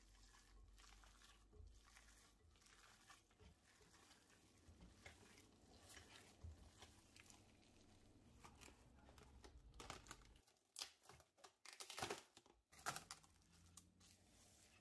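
Gloved hand squishing and mixing minced pork filling in a glass bowl, faint soft squelches and clicks. About eleven seconds in, plastic cling film crinkles and tears in a few short loud bursts as it is pulled over the bowl.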